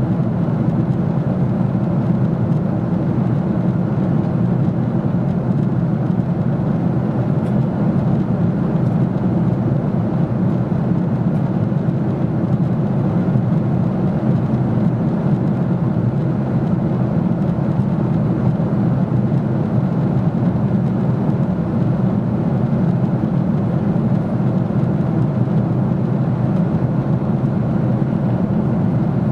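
Steady cabin noise inside a Boeing 777-200 airliner in flight: a constant low drone of engines and rushing air that does not change.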